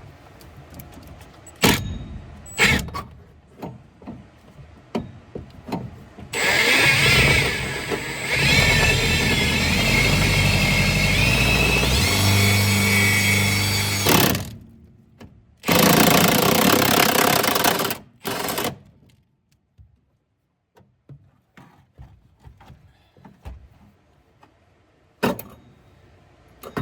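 An impact driver boring a hole through the car body's sheet steel: one long run of about eight seconds whose pitch shifts as the bit loads up, then a shorter run of about two seconds and a brief final burst as it breaks through. A few clicks of handling come before it.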